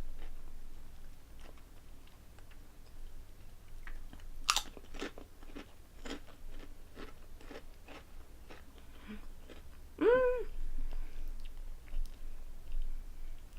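Crisp Korean potato snack chips being bitten and chewed close to the microphone, with irregular sharp crunches throughout. A short hummed "mm" comes about ten seconds in.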